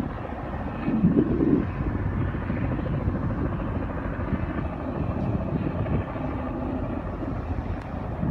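Low, steady engine rumble of a vessel on the water, with wind buffeting the microphone; it swells louder for a moment about a second in.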